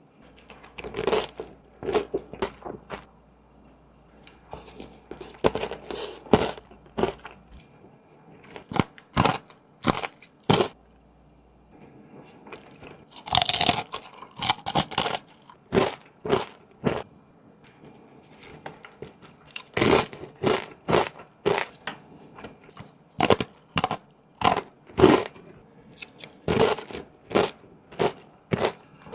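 Close-miked eating sounds: a person biting and chewing crunchy food, in repeated sharp crunches with short pauses between mouthfuls, a denser run of crunching near the middle.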